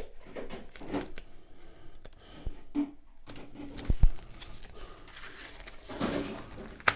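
Pages of a paper instruction booklet being flipped and rustled in the hands, with scattered small clicks and a sharp knock about four seconds in.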